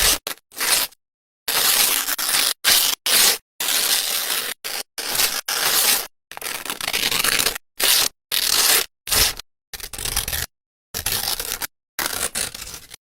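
A run of short crackling, crunching sound-effect clips for film-burn transitions, about a dozen in a row, each cut off abruptly by dead silence.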